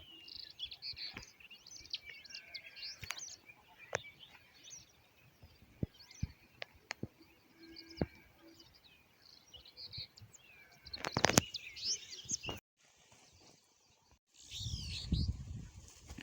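Small birds chirping and twittering, with scattered light clicks and a burst of louder crackling clicks about eleven seconds in. The sound cuts out abruptly for a moment near the end, then the chirping returns.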